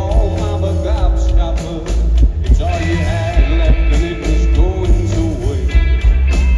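Live rock band playing an instrumental stretch with loud bass and drums and a wavering electric guitar line.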